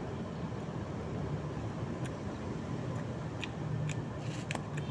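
Steady low rumble of vehicle traffic in the background, with a few faint crisp clicks and crackles in the second half as crispy fried chicken batter is picked apart by hand and chewed.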